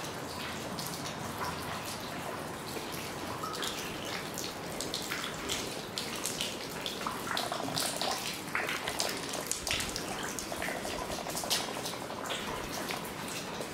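Rainwater dripping and splashing inside a derelict building: a steady patter over many irregular sharp drips, which come thicker in the second half.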